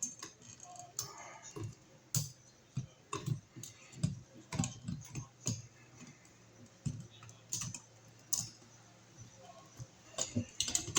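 Irregular light clicks and taps from small hardware and hand tools being handled at a wall outlet box.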